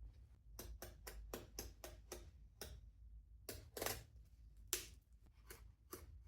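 Irregular light clicks and taps, about three or four a second, with two louder ones a little past the middle, over a low steady hum.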